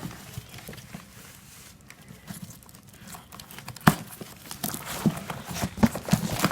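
Packaging crinkling and rustling as a tied-up plant bundle is unwrapped by hand, with a sharp snap about four seconds in and busier crinkling after it.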